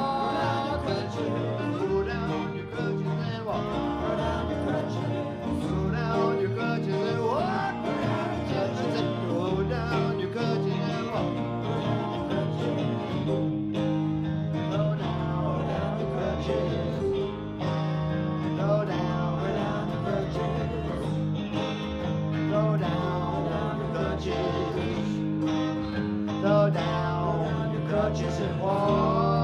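Live band playing an instrumental break on electric guitars, bass guitar and keyboard, with a lead guitar line full of bent, sliding notes over a steady bass.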